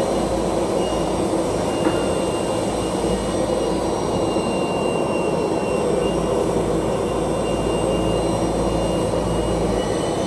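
ROBA Fentech profile sanding machine running steadily, processing a wooden window profile, with faint steady high whines over the machine noise and a single click about two seconds in.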